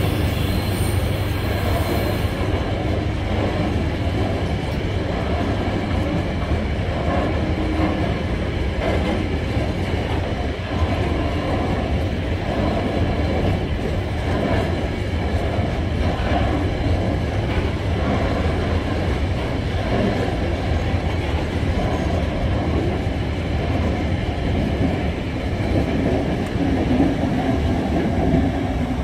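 Empty bulk cement hopper wagons of a freight train rolling past, their wheels on the rails making a steady rumble.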